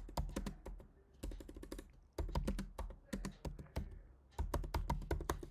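Typing on a computer keyboard: runs of quick keystroke clicks with short pauses between them.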